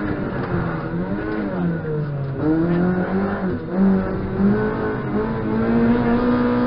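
Rally car's engine heard from inside the cabin, revs falling to a low point about two seconds in and then climbing steadily again as it accelerates.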